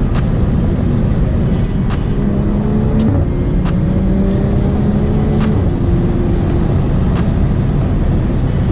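BMW F30 3 Series cruising on the road, heard from inside the cabin: a steady low rumble of engine and tyre noise with occasional sharp clicks. Music with held notes plays over it.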